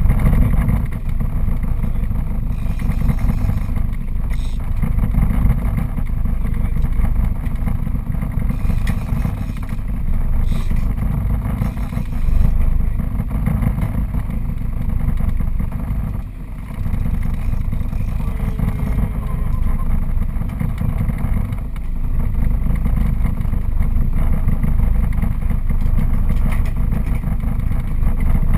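Motorboat engine running steadily, a low continuous rumble.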